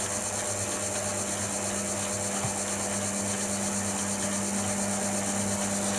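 Chester DB10 bench lathe running with its spindle turning while a hole in a brass workpiece is power-tapped: a steady motor and gear hum.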